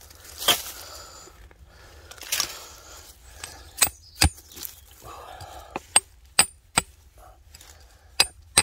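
Hand tool knocking and scraping into stony ground, breaking up rock and soil: about nine sharp, irregular knocks with short scrapes between them.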